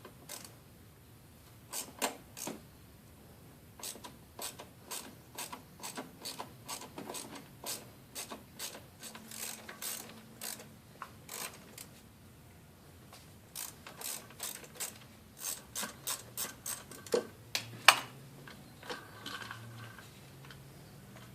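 Hand ratchet wrench clicking in quick runs of strokes as the throttle body bolts are backed out, with a pause about halfway through and one sharp click, louder than the rest, near the end.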